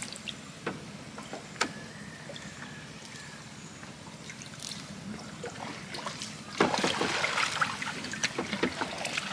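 Water dripping and sloshing beside a small wooden boat as a fishing long-line is hauled up by hand, with scattered light knocks. About two-thirds of the way in it turns louder, with a denser spell of splashing and rustling.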